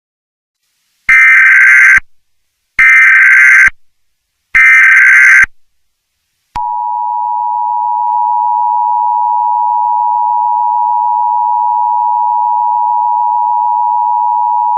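Emergency Alert System tones: three loud one-second bursts of SAME header data, a screeching digital warble, followed by a click and the steady two-tone EAS attention signal (853 and 960 Hz) held for about eight seconds. These tones mark the start of an emergency alert broadcast.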